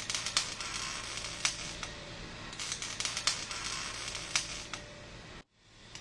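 MIG/MAG (gas metal arc) welding arc from a CLOOS QINEO ArcBoT cobot's torch, crackling and sizzling with irregular sharp pops of spatter. The sound cuts off suddenly about five seconds in and comes back just before the end.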